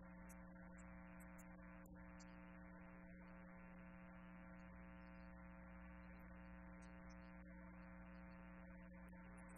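Near silence with a faint, steady electrical mains hum and buzz.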